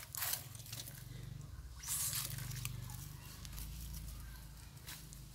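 Soft rustling and crackling of dry leaf litter, with a louder rustle about two seconds in, over a low steady rumble.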